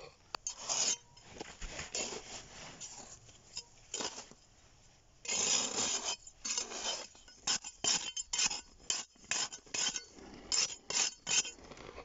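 Sandy soil being scraped and dug out of a burrow wall: irregular rasping scrapes, with a longer continuous scrape about five seconds in and then a run of quick, short strokes.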